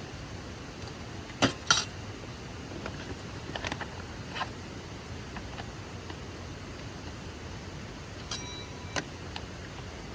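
Metal cooking pots and utensils clinking as they are handled, with two sharp knocks about a second and a half in, a few lighter clinks after, and one that rings briefly near the end, over the steady rush of a small stream.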